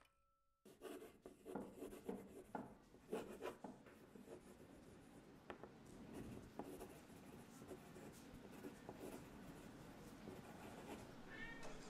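Faint scratching of writing on paper: irregular short strokes and small clicks, with a brief bird call near the end.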